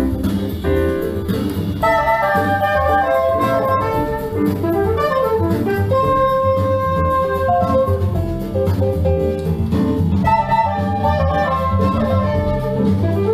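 Jazz played back through Lipinski Sound L707 Monitor loudspeakers in a listening room, a melody line coming in about two seconds in over a steady bass.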